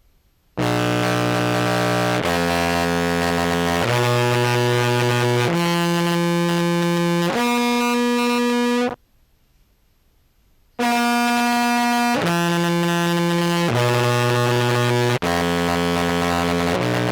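Contrabass clarinet played through a heavy fuzz pedal with a modulation pedal ahead of it, giving a thick, buzzy distorted tone. Two phrases of five held notes, each about a second and a half long, with a short pause between them.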